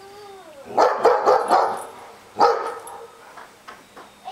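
Dogs barking: a short whine at first, then a rapid flurry of barks about a second in, a single loud bark about halfway through, and a few fainter barks near the end.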